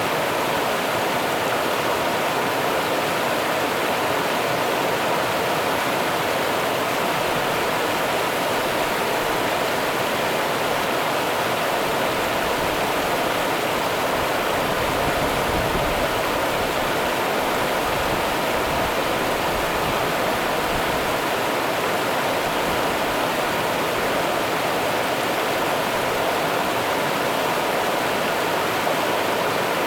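Rio Grande river water running: a steady, even rush of flowing water.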